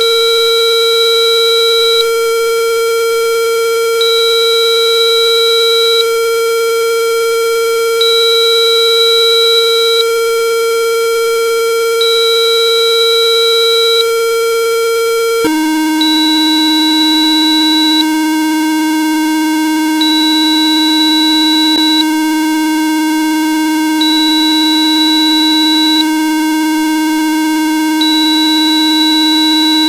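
Steady electronic test tone at 456.5 Hz that drops abruptly, about halfway through, to a lower steady tone at 309.9 Hz. These are Rife-style 'healing frequencies' generated by frequency software. A second, higher tone switches on and off every two seconds throughout.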